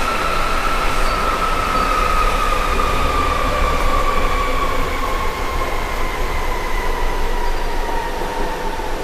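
Berlin U-Bahn Typ G subway car heard from inside while running and slowing. A whine falls steadily in pitch over the rumble of wheels on rail as the train decelerates into a station.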